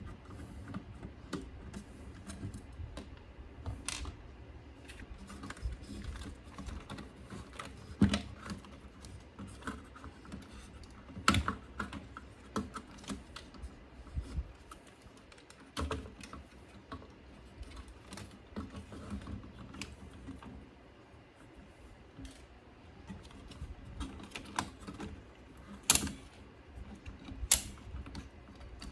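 Irregular light clicks and taps of small parts being handled while working on a CD receiver's pickup mechanism, with a few sharper knocks scattered through.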